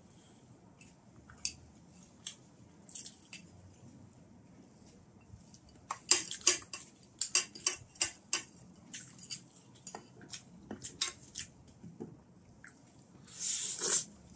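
A metal fork clinks and scrapes against a ceramic plate and a steel pan as pieces of fried chicken in sauce are pushed across. There are scattered light clicks at first, a dense run of sharp clicks from about six seconds in, and one longer scrape near the end.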